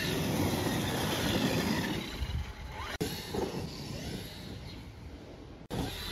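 Traxxas X-Maxx RC monster truck driving over grass, its brushless electric motor whining up and down with speed over tyre noise. The sound is louder in the first half and quieter as the truck runs farther off, breaking off sharply twice.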